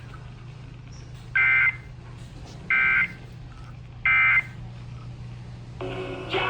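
Emergency Alert System end-of-message data bursts from a weather alert radio: three short, identical two-tone warbling beeps about a second and a half apart, marking the close of the severe thunderstorm warning. A softer sound with several steady tones begins near the end, over a low steady hum.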